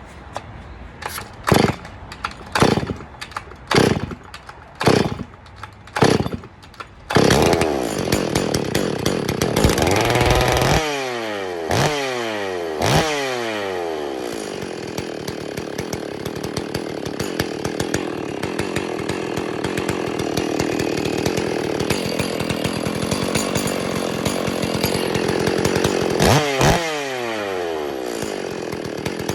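STIHL 046 two-stroke chainsaw pull-started from cold after about three weeks unused: about ten short bursts from the starter pulls, then the engine catches about seven seconds in. It is revved a few times, each rev falling away, settles to a steady idle, and is revved once more near the end.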